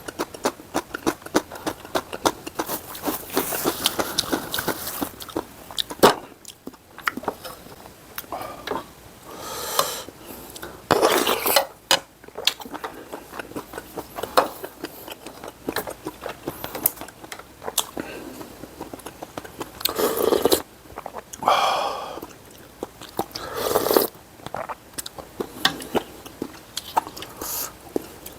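Close-miked eating sounds as spicy seafood noodle soup and fried rice are eaten: chewing, clicks of a spoon and chopsticks against dishes, and several louder bursts of about a second each.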